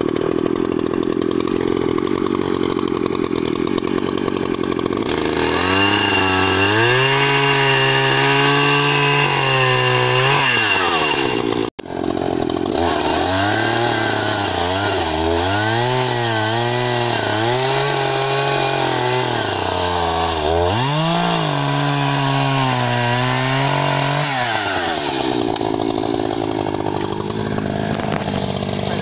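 Echo CS-590 Timberwolf two-stroke chainsaw bucking a downed log at full throttle, its engine note dropping and wavering under load as the chain cuts through the wood. There is a brief break about twelve seconds in, then a second stretch of cutting, and near the end the saw runs on at a higher, steadier note.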